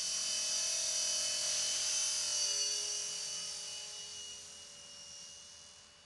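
Belt CP V2 electric radio-controlled helicopter: the steady high whine of its motor and rotor, dipping slightly in pitch about halfway through, then fading away as the helicopter climbs off into the distance.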